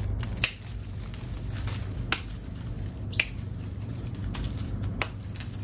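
Hand pruning shears snipping through Kishu mandarin stems: several sharp clicks, about one to two seconds apart.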